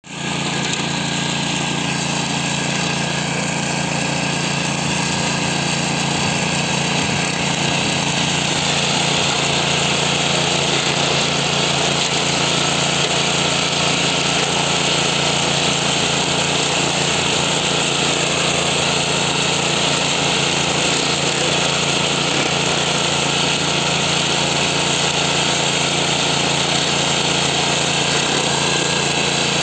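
Ruris 7800 walk-behind tractor engine running steadily under load, driving its front mowing attachment through tall grass; it runs well after some adjustments.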